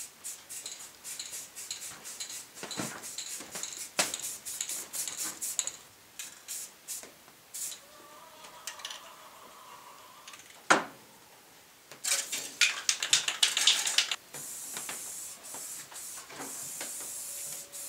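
Metal tools and parts clinking and clicking on a workbench: quick runs of clicks in the first few seconds, one sharp knock about eleven seconds in, then a dense clatter, and two short hisses near the end.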